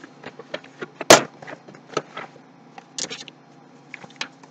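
Handling noises from opening a cardboard power supply box: a sharp snap about a second in, then lighter clicks, knocks and a brief rustle.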